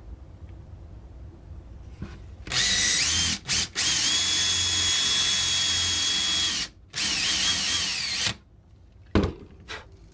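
Cordless drill spinning a Forstner bit into a wooden decoy head to bore an eye socket about a quarter inch deep. The motor whine rises as it spins up, stops twice briefly, runs steadily for about three seconds, pauses, then runs again for about a second with a wavering pitch. Two light knocks follow near the end.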